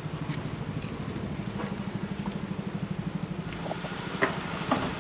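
An engine idling with an even, rapid low throb. Two short knocks sound near the end, about half a second apart.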